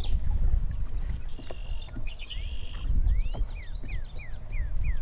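Wind buffeting the microphone, with a bird calling over it. The bird gives a quick run of short slurred notes, about three a second, in the second half. A thin, steady high-pitched tone runs underneath.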